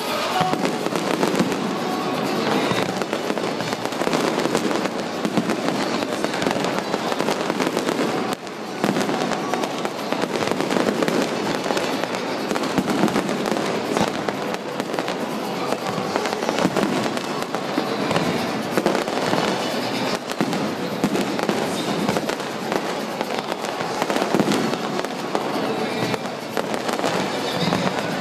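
Fireworks display: a continuous, dense barrage of bursting shells and crackling, with one brief lull about eight seconds in.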